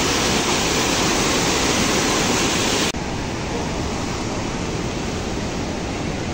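Flood-swollen, muddy river rushing, a steady dense noise of fast water. It drops suddenly to a slightly lower level about three seconds in and carries on the same.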